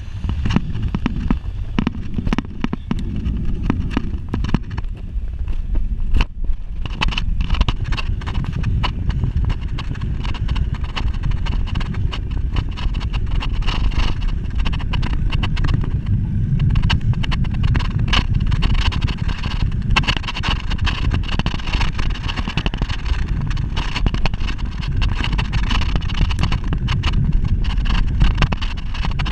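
Wind rushing over the microphone of a camera mounted low on a moving bicycle, with many quick, irregular clicks and rattles from the ride over the road.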